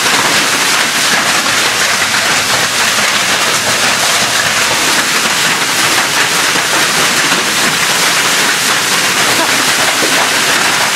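Hail and torrential rain pelting down on pavement and vehicles: a loud, steady, dense clatter of countless small impacts.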